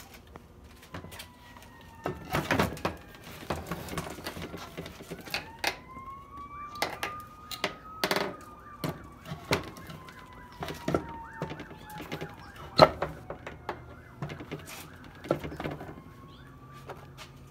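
Irregular knocks and clatters as the Pentair variable speed pump's motor and back seal plate are handled and fitted together on a workbench. Under them a faint siren slowly rises and falls.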